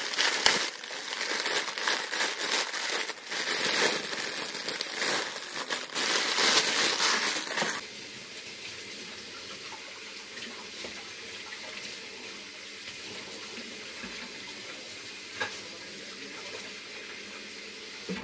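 A plastic produce bag of eggplants crinkling and rustling as it is handled, for about the first eight seconds. Then a kitchen sink tap runs steadily while the eggplants are rinsed under it.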